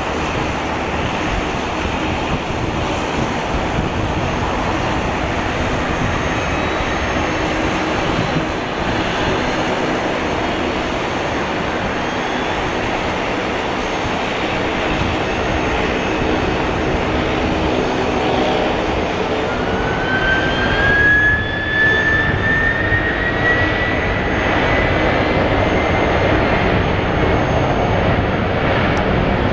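Airbus A300-600F's General Electric CF6-80C2 turbofans running as the jet lines up on the runway. About twenty seconds in a whine rises in pitch and the engines grow louder as they spool up to takeoff thrust for the takeoff roll.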